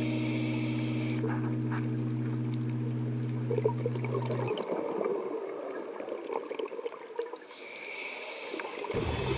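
Scuba breathing heard underwater: the diver's regulator with exhaled bubbles gurgling and crackling. A held chord of background music runs under it and stops about halfway through.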